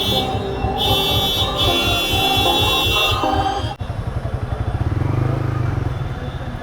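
Yamaha R15 V3's single-cylinder engine running while being ridden in traffic. Vehicle horns honk in several blasts during the first three and a half seconds.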